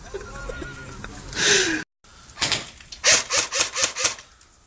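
Airsoft rifle fired in a quick string of about six shots within a second, after a single shot just before. A short rushing noise comes about a second and a half in.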